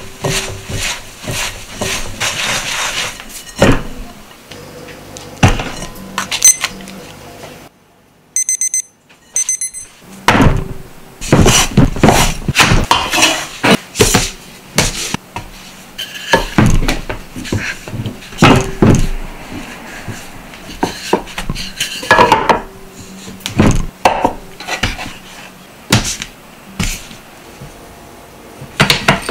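Hands mixing and squeezing crumbly ramen dough in a glass bowl, then pressing and patting the dough flat on a metal tray, with many separate knocks, taps and rubbing noises. About eight seconds in there is a brief quiet stretch with a quick run of short high beeps.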